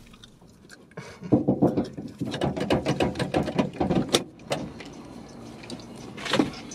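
Car passenger door opening and someone climbing into the seat: a run of clicks and rustling handling noise with one sharp click about four seconds in, then a short burst of movement near the end.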